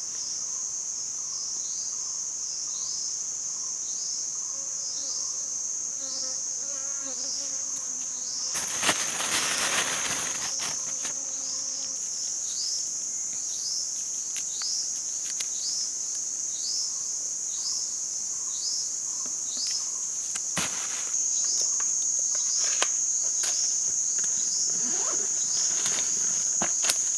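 Steady high-pitched drone of forest insects, with a short falling chirp repeating a little more than once a second. About nine seconds in there is a brief burst of rustling, and light clicks and rustles come from hands working a bamboo trap on leaf litter.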